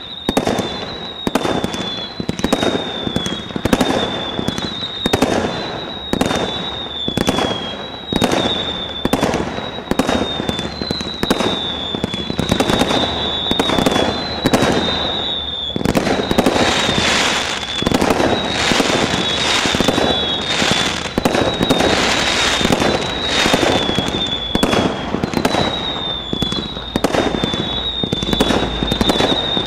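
Dark Angel 100-shot firework barrage firing in a rapid, steady series of shots, roughly two to three a second, with short high falling whistles between them. The shots grow denser and brighter about halfway through.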